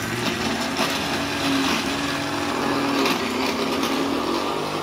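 Philips electric mixer grinder running, its motor whirring steadily as it grinds grated coconut and poppy seeds with a little water into a chutney paste.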